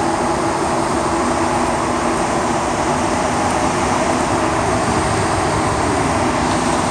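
Montreal Metro Azur rubber-tyred train running through a tunnel, heard inside the car: a steady, loud running noise with a few faint steady hums underneath.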